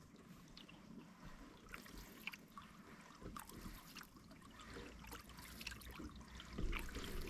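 Faint trickling and light splashing of lake water, with small scattered clicks and ticks.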